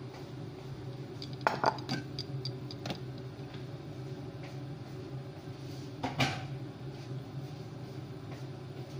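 Metal pots and dishes clattering as they are handled: a quick run of clinks and knocks about a second and a half in, and one louder metallic clang with a short ring about six seconds in, over a steady low hum.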